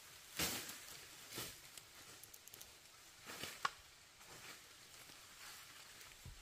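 Irregular rustling and crunching sounds, spaced about a second apart, with a sharp snap about three and a half seconds in.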